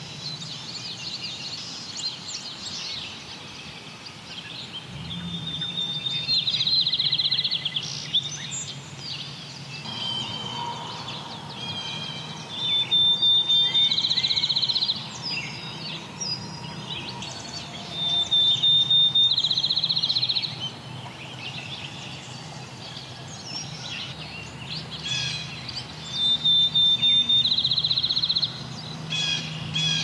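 Field sparrow singing four times, about six seconds apart: each song a clear whistled note that speeds up into a fast trill, like a ping pong ball bouncing. Other birds chirp faintly in the background.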